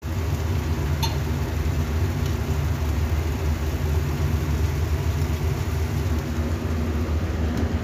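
Electric oven running while baking, giving a steady low hum with a few faint ticks.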